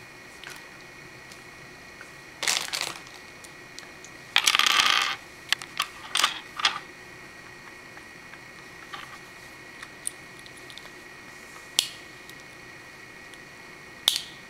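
Hard plastic Lego Bionicle pieces clicking and clattering as they are handled and snapped together, in scattered separate clicks with a louder half-second burst of rattling about four seconds in.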